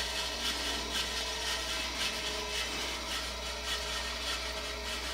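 Repeated rubbing strokes of hand work on a part, about two a second, over a steady low hum.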